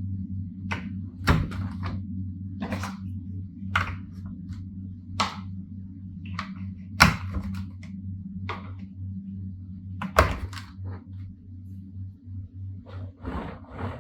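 Plastic toy building blocks being handled and clicked together, one sharp click or knock about every second, with a quicker run of clicks near the end, over a steady low hum.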